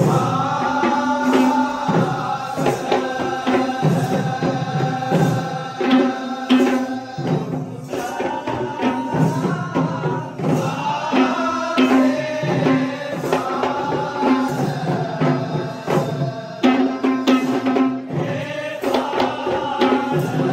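Traditional Kandyan drum ensemble playing: geta bera drums beaten in quick, repeating patterns under a continuous melody line that slides up and down in pitch.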